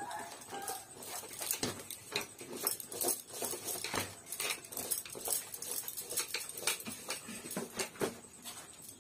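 Hand mixing dry pickle ingredients with salt in a metal pot: irregular rustling and crunching, with light clicks of pieces against the pot, a few times a second.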